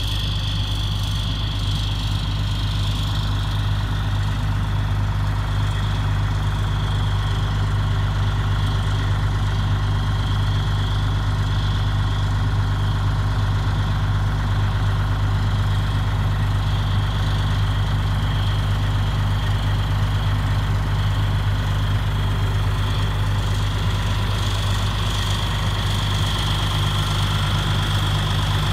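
Diesel engine of a 2001 Pierce Dash fire pumper idling steadily, with a thin high whine running over it.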